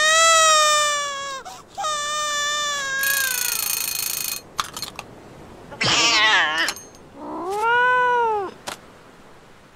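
Cartoon cats yowling and wailing. Two long, slowly falling wails open the sequence, a wavering cry comes around six seconds in, and a rising-then-falling howl follows at about eight seconds.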